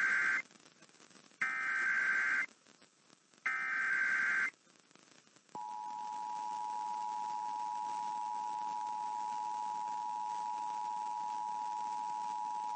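Emergency Alert System SAME header: bursts of harsh digital warbling about a second long and a second apart, the last ending about four and a half seconds in. Then, about a second later, the steady two-tone EAS attention signal begins and holds, announcing a coordinated monthly test.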